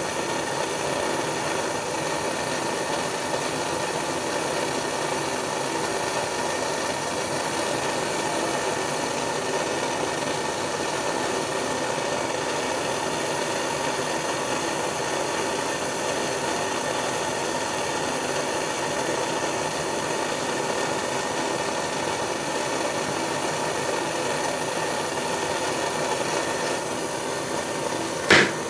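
Small propane torch burning with a steady roar as it heats a steel bar toward orange heat. Near the end, the first ball peen hammer blows ring on the hot steel over a small anvil.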